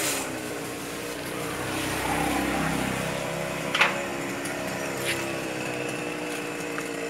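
Chainsaw idling steadily up in the tree after a rev, with a sharp click about four seconds in and a fainter one a second later.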